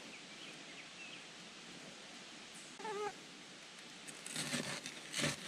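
Faint outdoor background with a few small bird chirps. About three seconds in comes a brief wavering mewing call, like a cat's meow. From about four seconds on, a table knife scrapes and taps repeatedly across bread on a wooden board.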